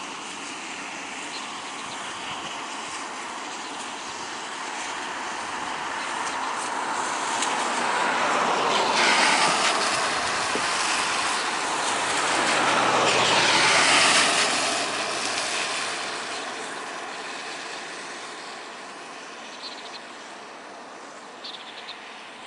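Twin jet engines of an Airbus A330-200F freighter heard across the airfield: a broad jet noise that swells to its loudest about halfway through, with sweeping rises and falls in pitch, then dies away.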